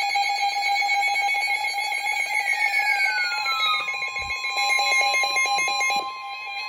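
Emergency Alert System alarm tones heralding a severe thunderstorm warning: a rapidly pulsing electronic alarm tone, joined about four seconds in by a steady higher tone. The sound gets quieter about six seconds in.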